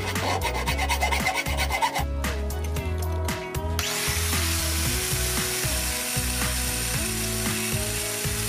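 Hand file rasping across a steel hatchet head in repeated strokes, then from about four seconds in an angle grinder with an abrasive disc running steadily against the steel. Background music with a melody and bass plays throughout.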